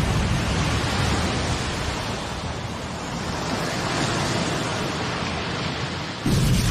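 Steady rushing of surging waves, a water sound effect, with a sudden louder boom near the end.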